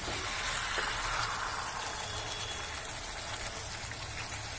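Chicken sizzling in spice masala in a kadai, a steady frying hiss, as the chicken gives off its water during the kosha dry-frying stage.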